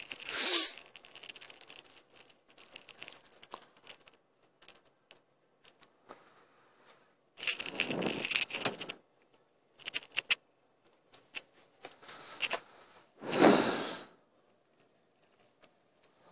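Rustling and crackling handling noise on the microphone, in three bursts: a short one at the start, a longer one about seven and a half seconds in, and another about thirteen seconds in. Scattered faint clicks fall between the bursts.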